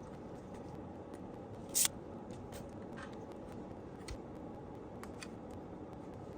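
Light clicks and taps of small hand tools at a workbench, with one louder, sharper click about two seconds in, over a steady low hum.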